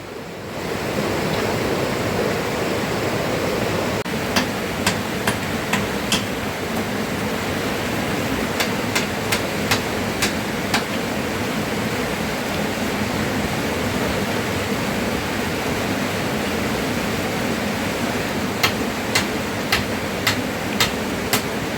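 Repeated sharp blows of a tool striking wood, in three short runs of quick, evenly spaced strokes, over a steady rushing of heavy rain and river water.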